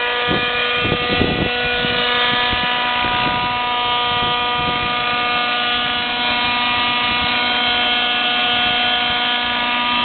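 Thunder Tiger Raptor 50 radio-controlled helicopter, its two-stroke glow engine and rotor running at a steady high pitch. Wind buffets the microphone in the first second or so.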